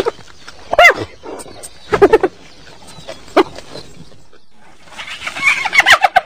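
Spotted hyena calling: a string of short yelping calls, each bending up and then down in pitch, spaced about a second apart, with a quicker run of calls near the end.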